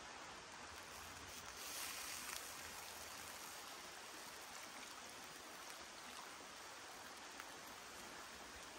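Liquid poured from a jug into a hot wok of frying beef, flaring into a louder hiss about two seconds in as it hits the pan, then settling to a faint, steady sizzle.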